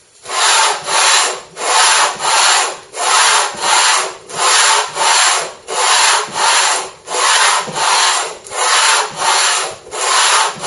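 The base of a grass tree wood bowl rubbed in circles on a flat sheet of 60-grit sandpaper glued to thick chipboard, levelling the bottom. It makes a loud, rhythmic rasping scrape of about two strokes a second.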